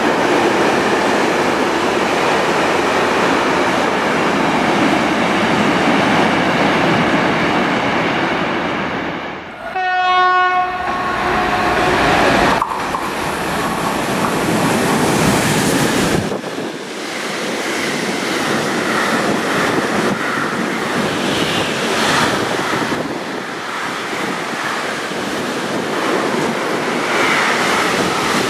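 Freight trains passing through a station: first the steady noise of a freight train going by on a far track. About ten seconds in, an approaching locomotive sounds one horn note lasting about a second, and then a container freight train passes close by.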